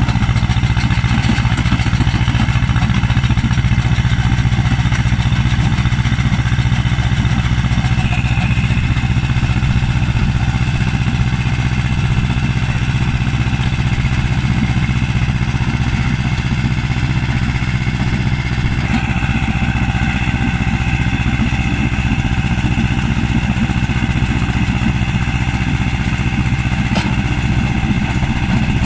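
Tractor engine running steadily under load, driving a stone crusher as it works through a stony field. The machine's higher whine shifts pitch slightly a couple of times.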